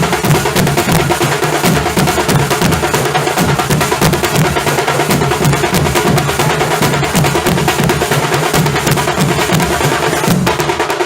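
Nasik dhol ensemble drumming: large barrel dhols and tasha drums beaten with sticks in a fast, dense, unbroken rhythm.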